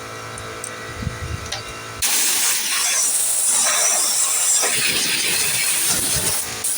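Compressed air from an air hose hissing into the spark-plug hole of a McCulloch chainsaw, blowing leftover wash water out of the cylinder. It starts suddenly about two seconds in and cuts off near the end.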